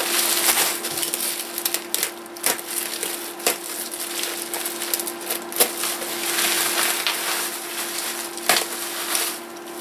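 Plastic bubble wrap being handled and pulled apart by hand: continuous crinkling and rustling with a few sharp crackles.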